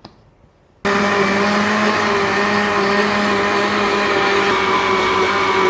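Electric jug blender switched on about a second in after a light click of the lid, its motor then running loud and steady as it purées mango chunks with milk and sugar.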